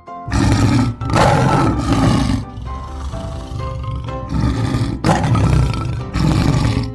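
Lion roar sound effect, heard several times over background music.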